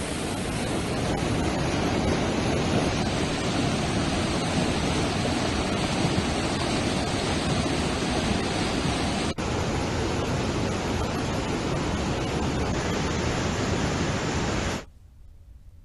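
Floodwater in a swollen river rushing and churning over rocks and spilling over a weir: a loud, steady rush of water. It breaks off for a moment at a cut about nine seconds in and drops away to a faint hiss about a second before the end.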